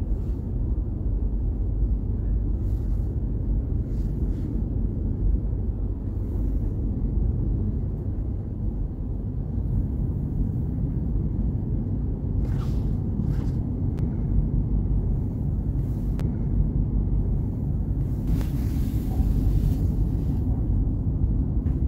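Steady low rumble of a regional express train running on the rails, heard from inside the passenger carriage. A few faint clicks come in its second half, and there is a brief hiss near the end.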